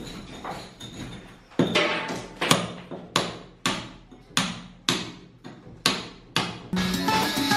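Hammer striking a steel chisel against a plastered wall, chipping plaster out along a crack: a run of sharp metallic blows at roughly two a second, starting after a few lighter taps. Music comes in near the end.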